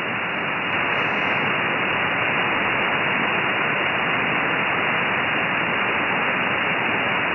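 Steady shortwave static hiss from an RTL-SDR V3 dongle receiver tuned to 2899 kHz, the Gander air traffic control frequency, with no voice on the channel.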